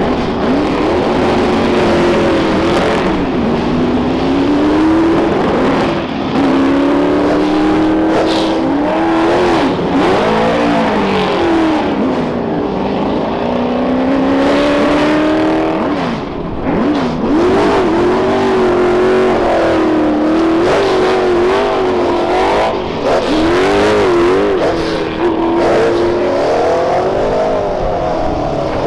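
Formula 5000 racing cars' V8 engines running loud while stationary, the throttles blipped again and again so the pitch keeps rising and falling, with several engines overlapping.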